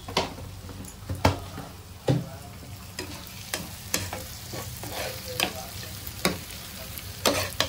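Stainless-steel spatula scraping and knocking against a non-stick frying pan while stirring brinjal pieces frying in oil, with a soft sizzle underneath. The strokes come irregularly, about one or two a second.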